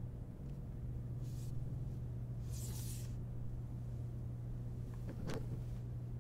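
A steady low hum of a quiet office at night, with two soft rustles of movement near the middle and a single sharp click about five seconds in.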